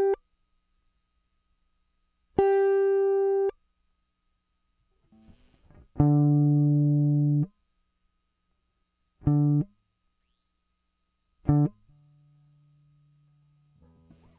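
Single electric guitar notes played through a breadboard audio compressor. Each note is held at an even, squashed level and then cut off abruptly. There is one higher note, then a low note held about a second and a half, then two short low notes, with a faint low note fading near the end.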